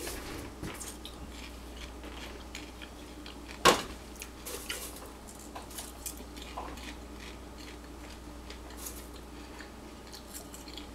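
Metal popcorn pot being handled, with small clinks and rustles and one sharp metallic clank a little under four seconds in as it is set down on the electric stovetop. Faint crunching of popcorn being eaten follows.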